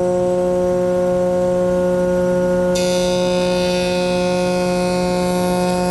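Jointer with a three-knife straight cutter head running at full speed with a steady hum. About three seconds in, a board edge fed across the cutter head adds a high, whining cutting sound that carries on to the end.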